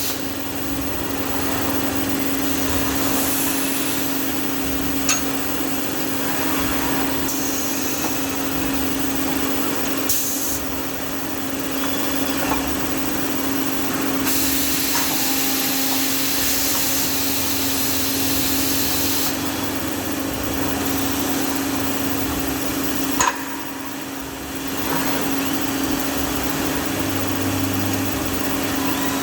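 CNC machine tool running with a steady mechanical hum. Stretches of hissing spray come and go, and there are a couple of sharp clicks, one about five seconds in and one near the three-quarter mark.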